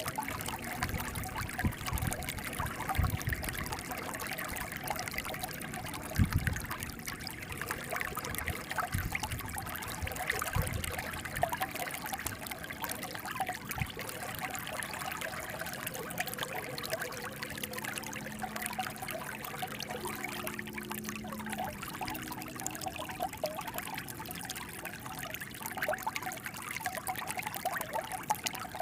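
Running water trickling and pouring steadily, with a few low thuds in the first ten seconds.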